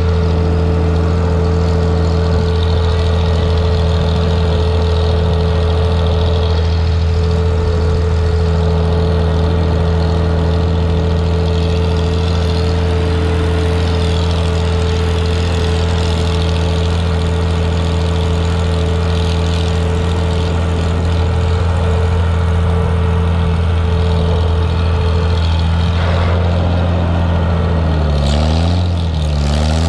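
Vintage tractor engine running steadily while the tractor drives down the road, heard close to the exhaust stack. Near the end the engine speed dips and picks back up a few times.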